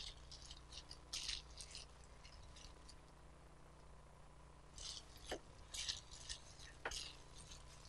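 Faint crinkling and rustling of plastic-gloved hands tossing shredded potato strips in a glass bowl, coating them with turmeric. Two light clicks stand out, about five and seven seconds in.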